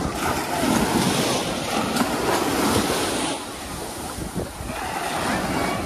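Sea surf washing on the beach, with wind buffeting the microphone. The surf is louder for the first three seconds or so, then eases off.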